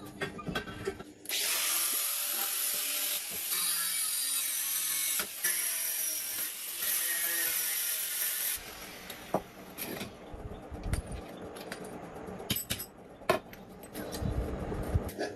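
A power tool running on a workpiece for about seven seconds, a steady harsh hiss that cuts off suddenly, followed by scattered clicks and knocks of parts and tools being handled.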